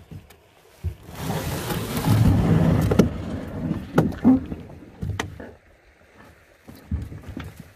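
A kevlar canoe being paddled: uneven swishes of paddle strokes in the water, with a few sharp knocks.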